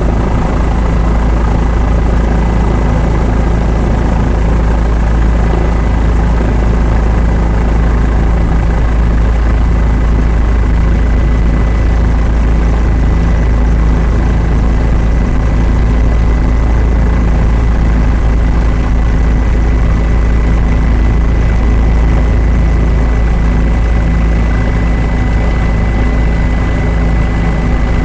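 Helicopter engine and rotor noise heard from on board, loud and steady throughout.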